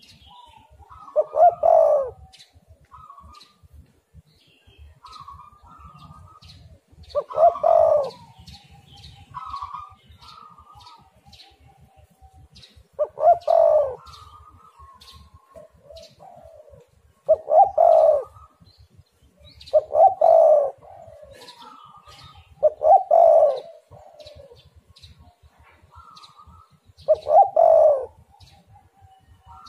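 Spotted dove (tekukur) cooing over and over in full song: about seven loud coo phrases every three to five seconds, with softer coos in between.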